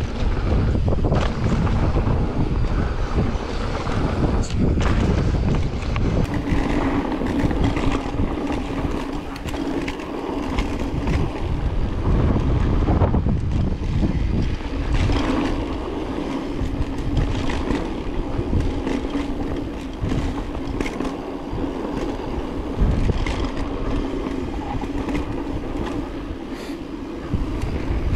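Mountain bike descending a dirt downhill trail: wind buffets the microphone, the tyres rumble and the bike clatters over bumps in short knocks. A steady mid-pitched buzz runs through much of it, dropping out briefly just after halfway.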